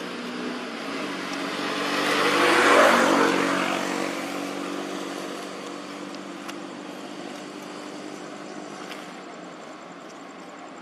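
A motor vehicle passing by: engine and tyre noise swell to a peak about three seconds in, then fade slowly.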